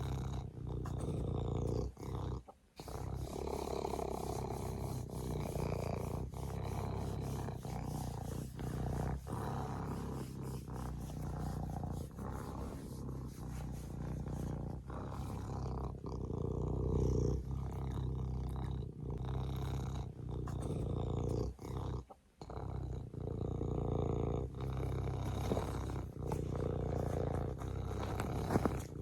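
Serval purring in a steady low rumble, breaking off briefly twice.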